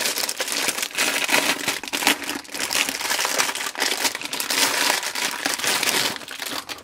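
Clear plastic wrapping crinkling and crackling as hands pull it off a boxed item. It goes on without a break and dies away at the very end.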